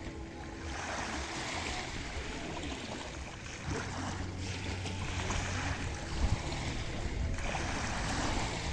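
Small sea waves washing and breaking at the shore, swelling and easing every few seconds, with some wind on the microphone. A low steady drone joins about four seconds in.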